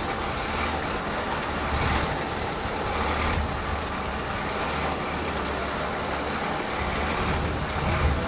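A large engine running steadily with a low rumble, under a broad, even rushing noise.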